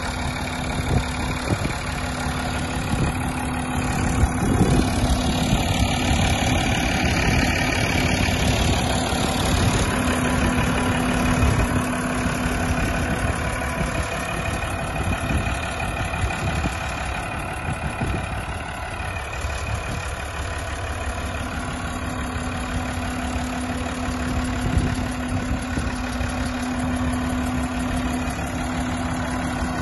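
1994 Massey Ferguson 399 tractor's six-cylinder Perkins diesel engine idling steadily.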